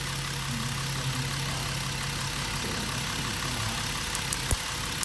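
Jeep Wrangler 3.8-litre V6 idling steadily, with a few sharp snapping clicks late on, the loudest about four and a half seconds in: high-voltage spark arcing from a faulty spark plug wire to a test light, the cause of the engine's misfire.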